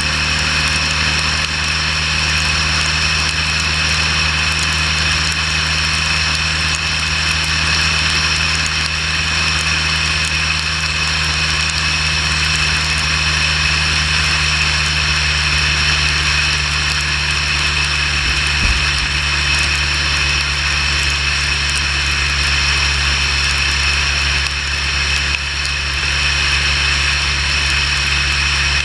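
Motorcycle engine running at a steady highway cruise, with a constant rush of wind and road noise over it.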